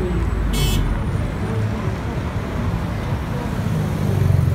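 City street traffic: cars passing with a steady low rumble, a brief high-pitched squeal about half a second in, and the rumble growing louder near the end as a vehicle passes close.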